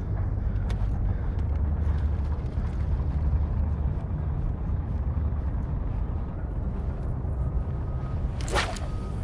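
Steady low rumbling noise with a few faint clicks, and one short, sharp burst of noise about a second before the end.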